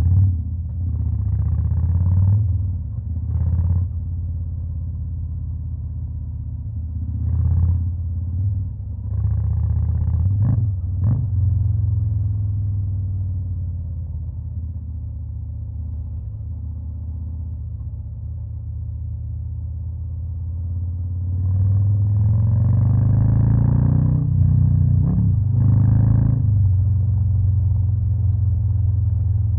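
Harley-Davidson Fat Boy's Stage 2-tuned V-twin engine idling with a deep, low note, blipped several times with short throttle revs. About two-thirds of the way through it revs up, rising in pitch, with two more blips, then holds a louder, higher note.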